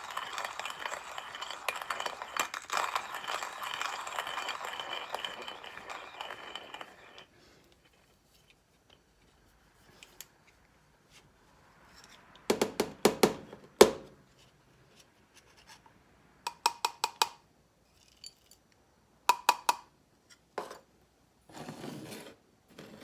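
Coffee grinder grinding freshly roasted beans, a steady gritty rattle that stops about seven seconds in. Several short runs of sharp clinks, taps and scrapes follow as the ground coffee is handled.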